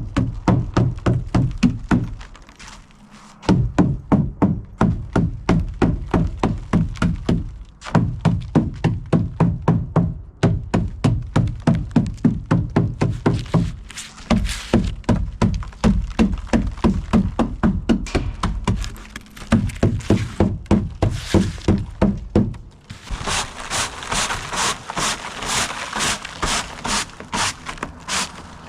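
Rapid repeated knocking and chipping as frost and ice are beaten off a porch roof, about four or five strikes a second in runs of a few seconds with short pauses. Near the end the strokes turn faster and brighter, more like scraping.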